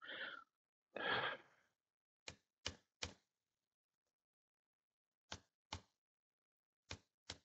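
Hammer tapping the back of a socket to drive a new shaft oil seal into its bore in the hydraulic pump body: seven sharp taps in three groups of three, two and two, after two short breathy sounds in the first second and a half.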